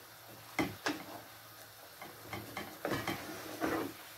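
Wooden spatula stirring potato curry in a cooking pan: irregular soft clicks and knocks as the spoon hits the pan, with a faint wet stirring between them.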